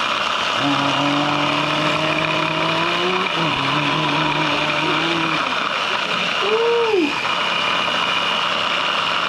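An electric kitchen appliance's motor running at a steady speed with a constant whirring hum; it switches on suddenly just before and cuts off just after. Voices talk faintly under it.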